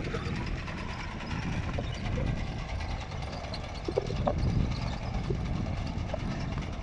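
Tractor engine running as it pulls a potato digger through the rows, a steady low rumble. A few short higher-pitched sounds come through about four seconds in.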